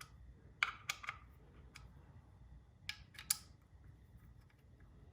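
Light metallic clicks and clinks of hand tools and small engine parts being handled, in two short groups of about three clicks each, one about a second in and another about three seconds in.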